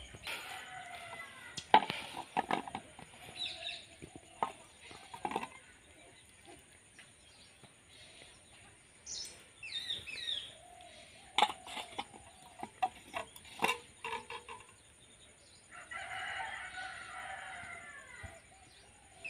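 A rooster crowing, once at the start and again near the end, over scattered sharp clicks and knocks as wood apple shells and a steel bowl are handled.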